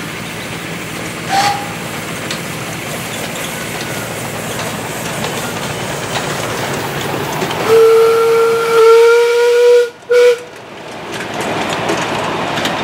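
Miniature steam locomotive's whistle sounding one long blast of about two seconds, then after a brief break a short toot. Underneath runs a steady rushing noise of the running train, with a brief high chirp about a second in.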